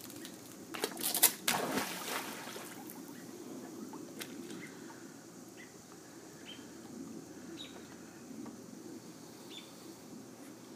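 A dog jumping into a swimming pool: a loud splash about a second in, then quieter sloshing of water as it swims. A few short, high chirps come through now and then.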